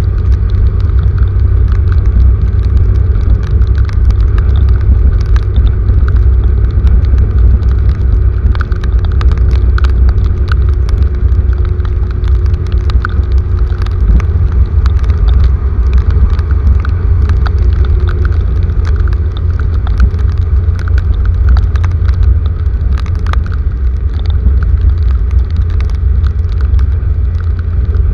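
Heavy rain: a loud, steady low rumble with scattered sharp ticks of drops striking.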